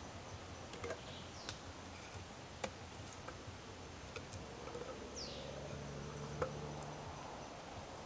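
Cut wooden sticks knocking against each other as they are laid one by one across a pole frame to make a chair seat: a few short, sharp knocks, the loudest about six seconds in. A bird gives a falling whistled call twice, over a steady background of forest insects.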